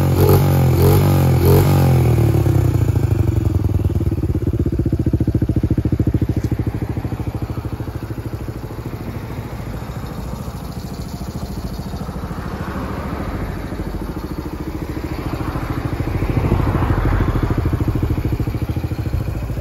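Honda Gorilla Z50J's small four-stroke single-cylinder engine running through an aftermarket full exhaust. A few quick throttle blips in the first two seconds, then it settles to a steady, even idle that grows a little louder near the end.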